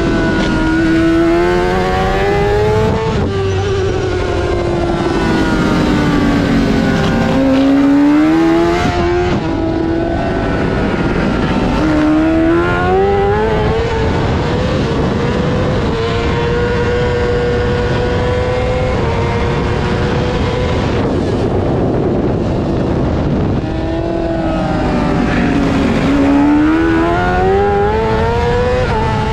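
Honda CBR600's inline-four engine at racing revs, its pitch repeatedly falling as the bike slows and climbing back up under hard acceleration. There is a few seconds' stretch at a steady high pitch partway through.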